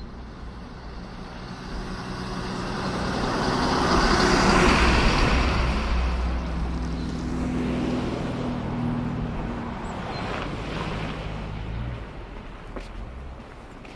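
A motor vehicle passing close by: engine and tyre noise swell to a peak about four to five seconds in, then fade slowly, with the engine's low hum lingering until about twelve seconds in.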